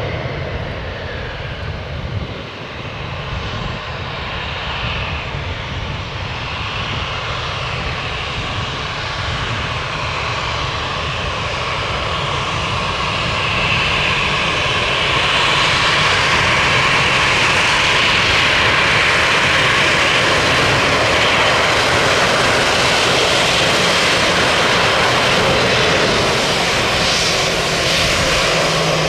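Airbus A319's twin jet engines running at low power as the airliner taxis toward the listener, a steady whine over a rush of noise that grows louder about halfway through.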